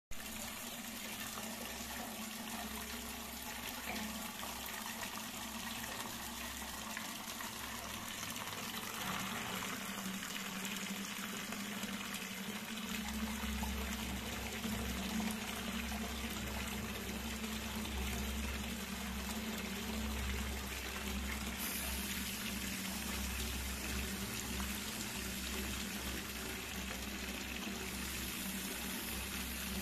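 Steady rush of water flowing below a dam, with a low rumble joining in about a third of the way through.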